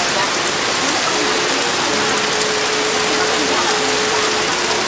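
Steady, even hiss with faint held tones underneath.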